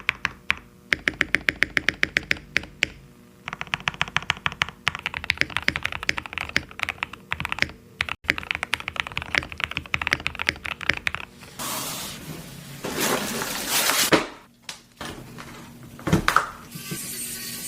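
Rapid typing on a mechanical keyboard fitted with Prevail Nebula switches: quick runs of key clacks for about eleven seconds. Then come a couple of seconds of rough noise and a few separate knocks near the end.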